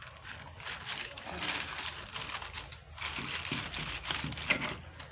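Irregular scraping, rustling and clicking of parts being handled as a kitchen chimney hood motor is taken apart by hand.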